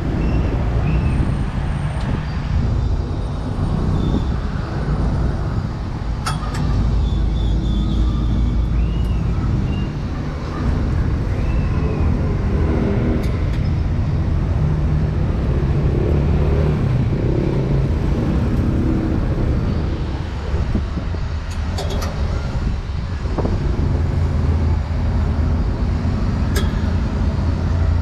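Busy road traffic: motorbike and car engines running and passing in a steady low rumble, with one engine closer through the middle. A few sharp clicks stand out.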